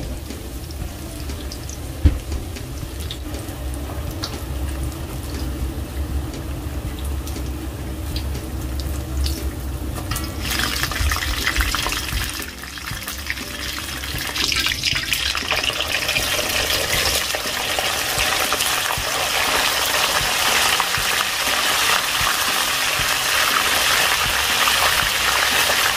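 Tempura deep-frying in hot oil: a steady sizzle that turns much louder and brighter about ten seconds in, over a low hum that fades out soon after.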